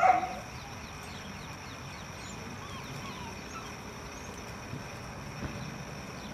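A dachshund puppy's short, high yappy bark right at the start, then steady outdoor background with faint bird chirps.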